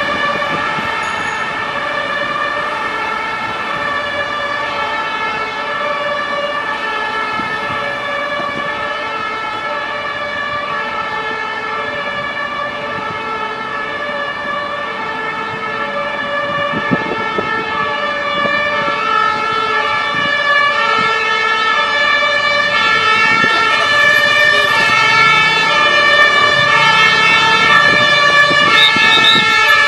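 Emergency vehicle two-tone sirens, switching between a high and a low note about once a second, several sounding at once out of step with each other. They grow louder over the last third as the vehicles come closer.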